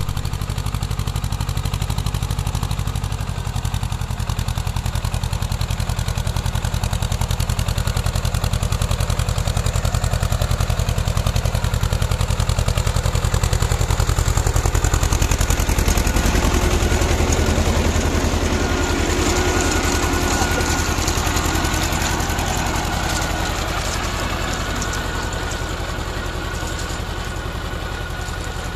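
Swaraj 724 FE mini tractor's diesel engine running steadily under load while it drives a rear-mounted rotary mini weeder tilling the soil between crop rows. The engine grows louder as the tractor comes close, with more mechanical rattle in the second half, then eases off near the end.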